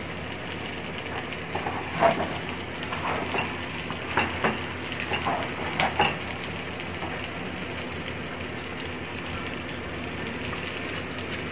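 Wooden spatula stirring and scraping cooked biryani rice in a large aluminium pot, with a few short scrapes and knocks in the first half over a steady low hiss.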